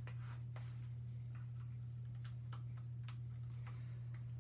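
Irregular light clicks and small knocks from a leather shoulder-holster harness being handled and adjusted on the body, over a steady low hum.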